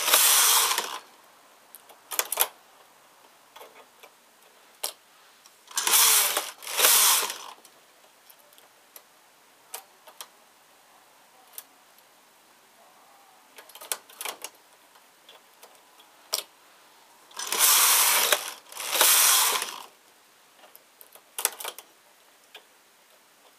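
Domestic knitting machine carriage sliding across the metal needle bed, a rasping whir about a second long for each row. The carriage makes three quick back-and-forth pairs of passes: one at the start, one about six seconds in and one about eighteen seconds in. Between the passes come small scattered clicks and taps as stitches are handled on the needles.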